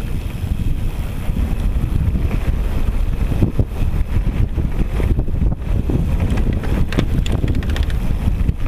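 Wind buffeting the microphone of a camera on a moving mountain bike, over the rumble of the tyres rolling down a loose gravel trail. Scattered clicks and knocks come from the bike rattling over stones.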